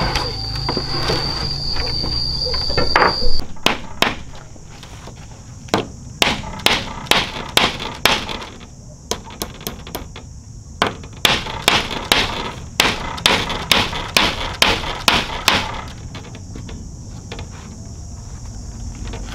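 Hammer blows on a wall of bamboo poles: sharp knocks about two a second, in two runs with a short pause between them.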